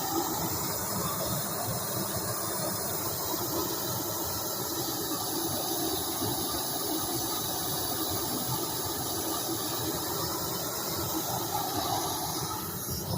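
Gas torch flame burning with a steady hiss, charring the surface of carved wood.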